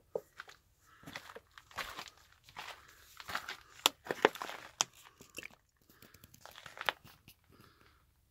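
Footsteps crunching and scuffing on gritty rock, in irregular steps with a few sharp clicks.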